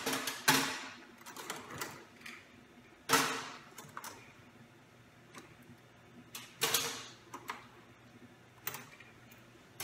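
Steel surgical instruments clicking and clinking against each other and the tub as they are handled and set one at a time into detergent water: several sharp clicks a second or more apart.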